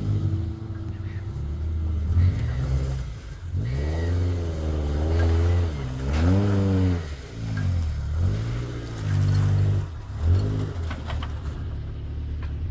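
Suzuki SJ413's 1.3-litre four-cylinder engine revving up and dropping back several times as it works off-road, with a few sharp knocks near the end.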